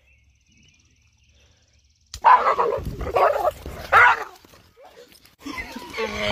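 A dog yelping in pain three times in quick succession, starting about two seconds in, after getting a shock from an electrified fence gate. Near the end a donkey begins to bray.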